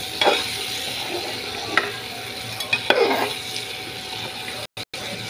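Bitter gourd pieces frying in oil in a metal pan, sizzling steadily, as a spatula stirs and scrapes through them with three strong strokes. The sound drops out twice very briefly near the end.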